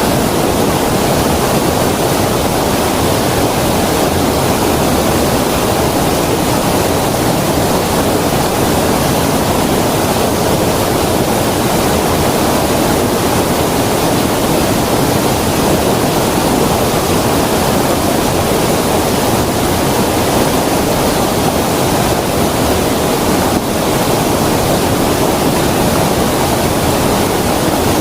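Creek water flowing with a steady, unbroken rush.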